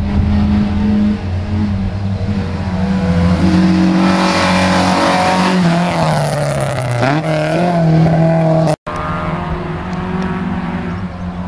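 Historic rally car engines running at high revs. One passes close about six to seven seconds in, its pitch falling as it goes by. Near the end the sound cuts out for an instant, then another engine is heard.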